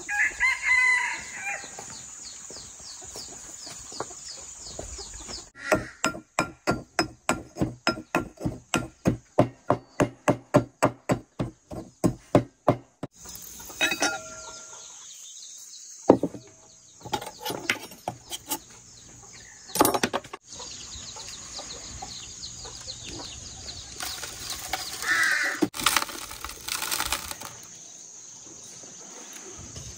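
A chicken calls briefly at the start. A few seconds later comes a steady run of about twenty knocks, roughly three a second, followed by scattered clatter and another short call near the end. A high insect drone runs in the background at times.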